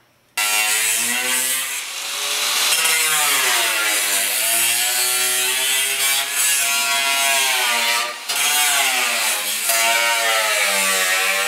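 Angle grinder grinding the rusted sheet steel of a 1939 Chevy's lower front quarter panel, starting suddenly about half a second in. Its whine rises and falls in pitch as the disc bites into the metal and eases off, and it lets up briefly about eight seconds in.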